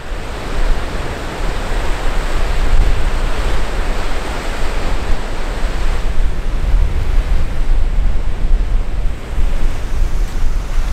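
Waves of the Baltic Sea breaking and washing up a sandy beach, with strong wind gusting across the microphone in a steady low rumble.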